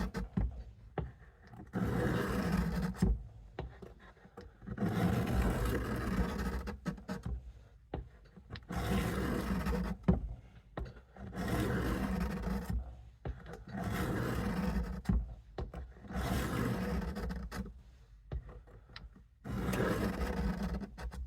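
Steel blade of a Case USMC knife drawn in long strokes across the coarse side of a diamond sharpening stone lubed with WD-40: a series of gritty rasping passes, each lasting a second or two, with short pauses between. The edge is being reground to a 25-degree bevel.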